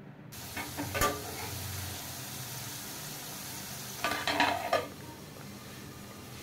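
Sliced onions and garlic sizzling in oil in a kadai, with a single scrape or tap about a second in. About four seconds in, a metal plate clatters down onto the kadai as a lid, and the sizzle goes on a little quieter under it.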